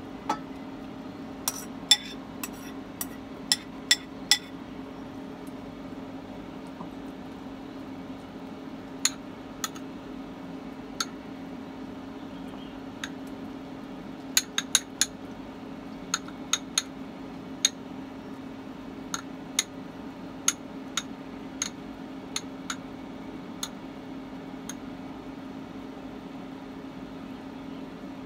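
A metal spoon clinking and tapping against ceramic bowls as egg mixture is spooned in and spread, in irregular scattered taps, over a steady low hum from an induction cooktop running.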